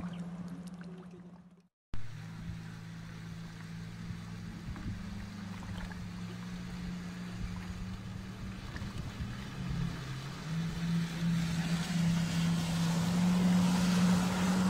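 Motorboat engine running steadily with water rushing past the hull, after a brief dropout about two seconds in. Over the last few seconds the engine note rises a little and the hiss of spray grows louder as a jet ski comes close.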